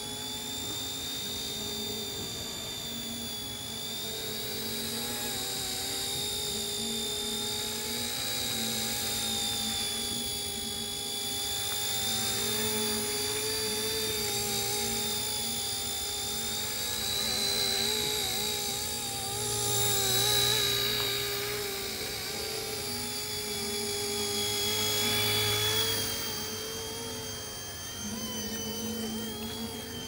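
Homemade remote-control helicopter in flight: a small electric motor's high whine with rotor whir, its pitch wavering slightly as the throttle changes. It swells louder a few times, most strongly about two-thirds of the way through.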